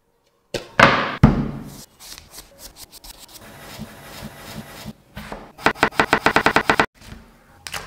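A bamboo cutting board is set down on a table with two loud knocks. A kitchen knife then cuts a peeled potato on the board with small scraping clicks, followed by a fast run of about a dozen chops against the wood.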